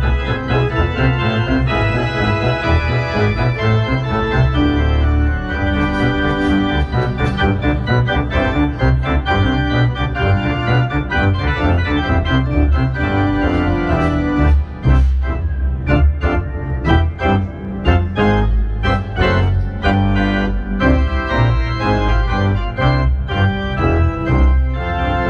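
Organ played on two manuals and pedals: full sustained chords over a steady pedal bass, with a passage of short, detached chords in the middle.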